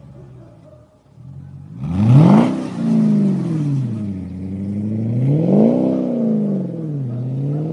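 Mercedes-Benz CLS500 V8 with an aftermarket tuned exhaust accelerating away. About two seconds in the exhaust note climbs sharply and drops back, then swells in a second long rise and fall, and starts climbing again near the end, with a hiss over the first rise.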